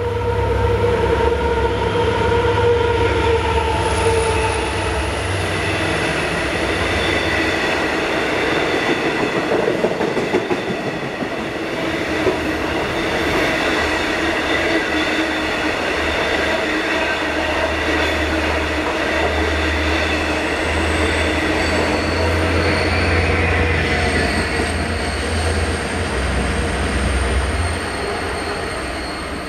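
Long Island Rail Road train of C3 bilevel coaches with EMD DM30AC locomotives at both ends passing at speed without stopping. A loud, steady rumble of locomotive and wheels on rail throughout, with a deep low drone at the start and again through most of the second half, and faint high squealing from the wheels.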